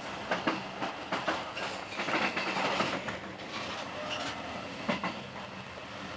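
Passenger train running at speed, heard from inside the carriage: wheels clattering over rail joints in an uneven series of knocks over a steady rush of running noise, the rush swelling about two seconds in.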